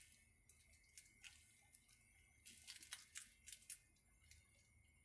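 Faint light clicks and rustles of a fine wire-mesh kitchen strainer being handled, most of them about two and a half to four seconds in, over a faint steady high tone.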